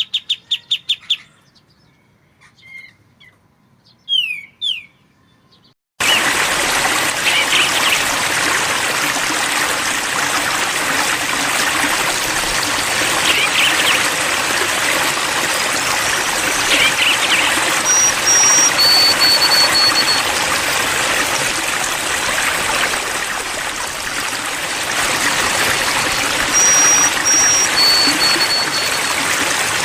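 Pied triller (kapas tembak) calling: a fast run of repeated notes, then a couple of rising calls. About six seconds in it cuts suddenly to a steady trickling stream, with faint two-note bird whistles over the water twice.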